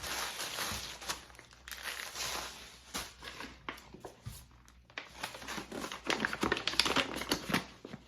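Rustling and crinkling of the bags of panko breadcrumbs and flour as they are handled and poured out for breading, in irregular bursts that are loudest near the end.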